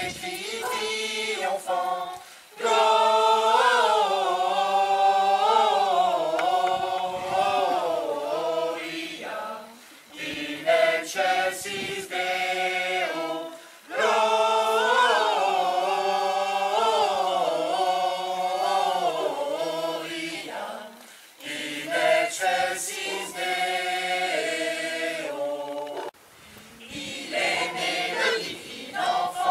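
Several voices singing together as a choir, in long sung phrases with brief breaks between them.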